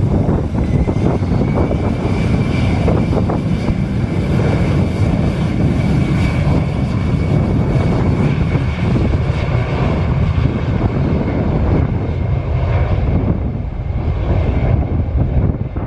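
Embraer Lineage 1000 business jet taxiing past, its twin GE CF34-10E turbofans running with a steady high whine over a low rumble; the whine fades in the second half as the jet moves onto the runway and away.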